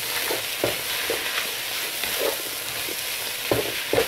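Beef strips and green pepper sizzling in a frying pan while a wooden spatula stirs them, giving short scrapes and knocks against the pan at irregular moments over a steady sizzle. The peppers are being wilted briefly in the cooked meat.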